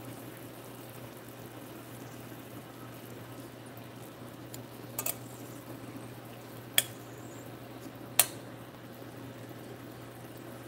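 Metal tongs clinking sharply against a stainless steel pan a few times as glazed carrots are lifted out, the loudest two clinks in the second half, over a steady low hum.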